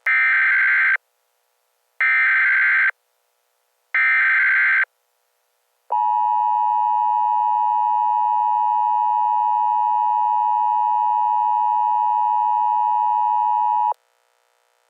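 Emergency Alert System header: three one-second bursts of SAME digital data tones, about a second apart. They are followed by the steady two-tone EAS attention signal, which runs for about eight seconds and cuts off sharply.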